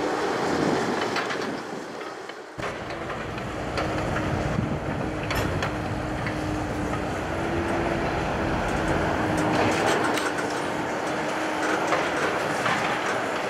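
Gondola cars of a slow-moving freight work train rolling past, wheels clicking over rail joints, over a steady engine drone whose pitch wavers slightly. The sound dips briefly about two seconds in.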